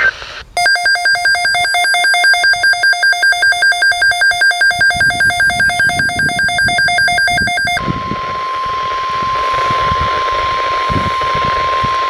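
A weather radio receiver's electronic alert alarm beeps rapidly, about four beeps a second, for roughly seven seconds. It then gives way to the steady single-pitch 1050 Hz NOAA Weather Radio attention tone, which signals that an emergency alert message is about to be read.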